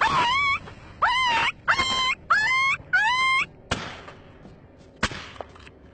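A wild canine yelping five times in quick succession, each yelp sliding up and down in pitch. Then come two sharp rifle-shot cracks about a second and a half apart.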